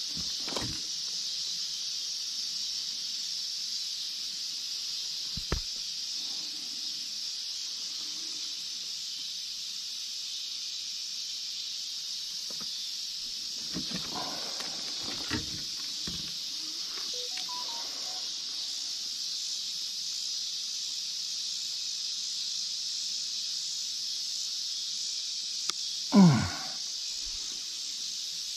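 Steady high-pitched chorus of night insects, with a few faint knocks and small handling sounds, and near the end a short loud sound that drops steeply in pitch.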